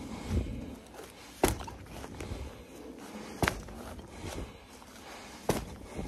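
A metal-detecting spade cut into soft, rain-softened turf three times, about two seconds apart, each stroke a short sharp crunch.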